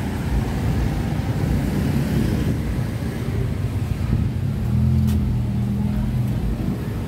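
Street traffic: vehicle engines running past with a constant low rumble. About five seconds in, one engine hums steadily for a second and a half.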